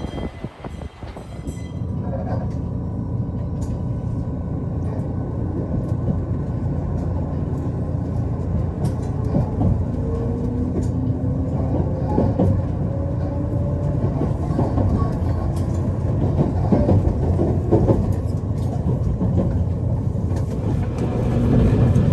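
Passenger train running along the track: a steady low rumble with scattered light clicks from the wheels and rails. It gets louder about two seconds in.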